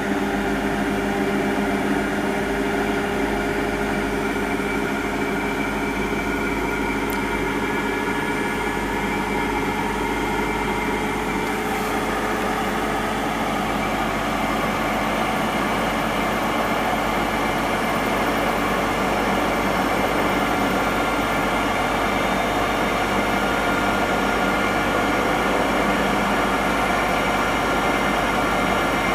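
Hotpoint NSWM 843C inverter-motor washing machine spinning its empty drum on a 1400 rpm spin: a steady high-speed whine over a low rumble. The owner is unsure whether the sound means the drum bearings are starting to go.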